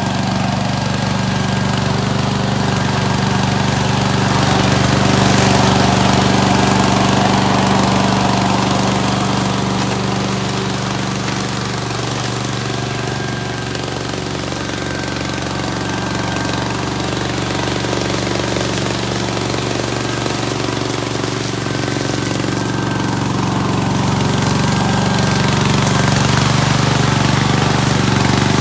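Engine of a remote-control tracked lawn mower running steadily under load as it mows. It drops slightly in the middle and grows louder again toward the end.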